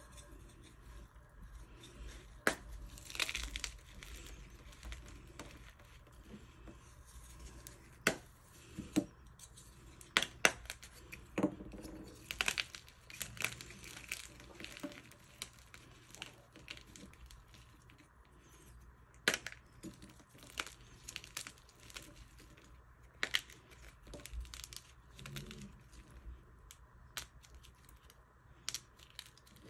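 Purple dyed chalk blocks being broken and crushed by hand into chunks and powder: irregular sharp cracks and crunches with softer crumbling in between, busiest about a third of the way in.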